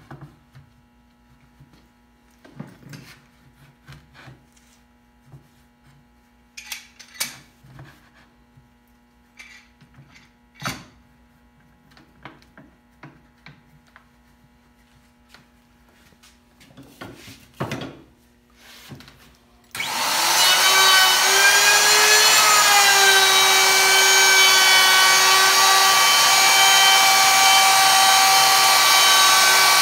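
Scattered light knocks and taps as a cherry board is handled and worked with a hand tool, then, about two-thirds of the way in, a handheld electric router switches on, its whine rising as the motor spins up, and runs steadily on the cherry plaque.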